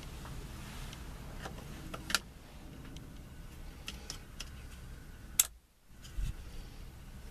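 A few sharp clicks and light ticks of small parts and tools being handled in a car's steering column, two louder clicks about two and five seconds in, then a dull thump near the end.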